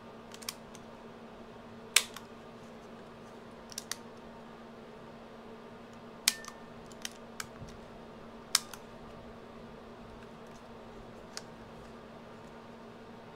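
Plastic buttons of a Sanyo MGP-44 Walkman cassette player being pressed: about ten sharp mechanical clicks at irregular intervals, three of them louder. The player does not start, its drive belt dry and stuck.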